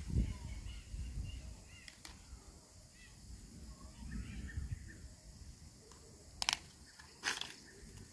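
Outdoor ambience with faint bird chirps and low rumbling bumps on the microphone, then two sharp clicks near the end, under a second apart.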